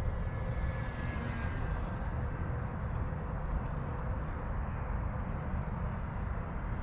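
Electric motor and propeller of a small foam RC model plane, a GWS Zero, whining steadily in flight; the high whine sags slightly in pitch about a second in, over a steady low rumble.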